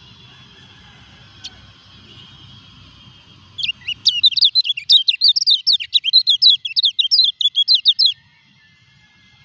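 Caged white-eye (kecial kuning) singing a fast, twittering song of rapid high notes. The song starts about three and a half seconds in and stops abruptly near the end. The bird is in moult (ngurak) but still singing.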